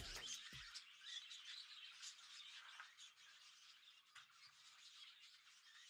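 Faint, busy chirping and twittering of many small birds in an aviary, slowly fading.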